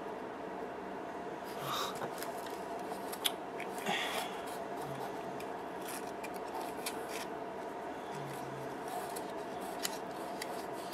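Hands rustling crinkle-cut paper shred and handling small nail polish bottles and their paper band, giving light rustles, scrapes and a few small clicks over a steady hum.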